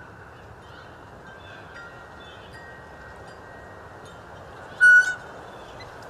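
Blue jay giving a short, loud, raspy call about five seconds in, a mimicry of a red-tailed hawk's scream, with a weaker second note just after it. The field recording has a steady hiss, and woodpeckers and crows are faint in the background.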